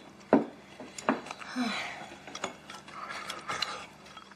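Scattered light clicks and taps of chopsticks and tableware against bowls at a breakfast table, a few sharp ticks spaced irregularly over quiet room sound.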